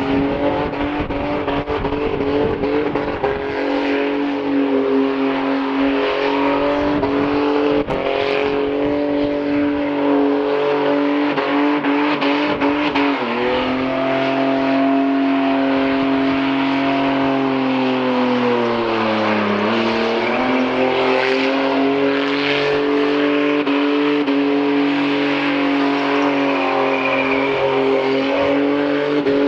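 Car engine running at steady revs; partway through its pitch sags smoothly and climbs back as the revs dip and recover.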